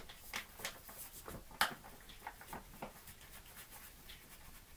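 Flour being poured from a paper packet into a stainless steel bowl: faint rustling of the paper bag with irregular light crinkles and ticks, the sharpest about one and a half seconds in, thinning out towards the end.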